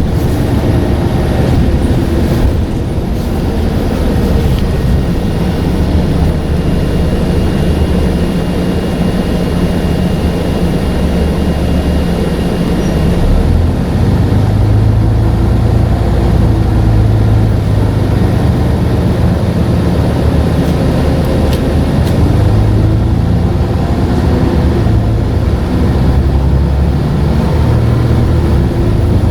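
Scania N94UD double-decker bus's engine running under way with its ZF gearbox, the engine note shifting in pitch several times as it changes gear and load. A thin high whistle runs through the first half.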